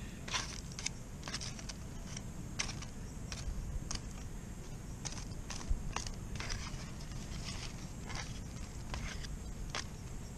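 A metal fork scraping and tapping on aluminium foil as food is picked out of it: a string of short, irregular clicks and scrapes over a low steady rumble.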